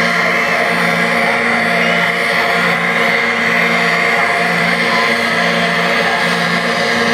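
Loud electronic dance music over a festival sound system, heard through a phone's microphone, with a low note pulsing about once a second.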